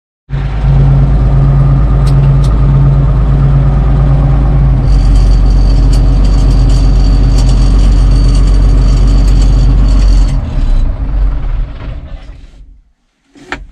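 Case tractor engine running steadily, heard from inside the cab, with a thin high whine joining about five seconds in; about ten seconds in the engine is shut off and runs down over a couple of seconds. A short knock near the end.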